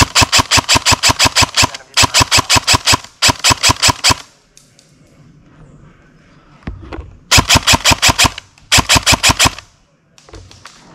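Airsoft rifle firing full-auto bursts, a rapid even rattle of shots at about ten a second. Three bursts come back to back, then after a pause of about three seconds two shorter ones.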